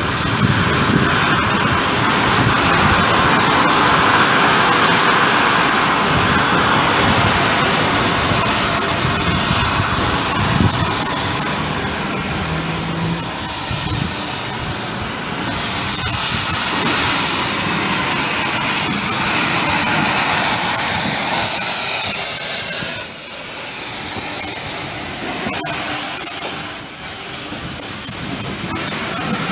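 LMS Black Five steam locomotive 45212 passing close by: a loud, steady rush of escaping steam and hiss with the train running on the rails, easing slightly after about twenty seconds.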